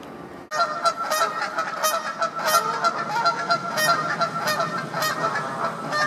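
Canada geese honking, a loud, rapid run of overlapping honks that starts abruptly about half a second in.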